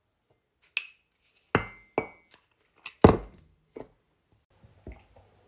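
A metal spoon clinking against a glass sugar jar and a ceramic mug while sugar is spooned out: about six sharp clinks in the first four seconds, a couple of them ringing briefly, then a few faint small knocks.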